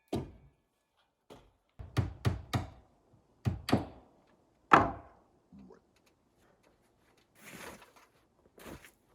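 A string of irregular thunks and knocks, about a dozen separate hits, the loudest about halfway through.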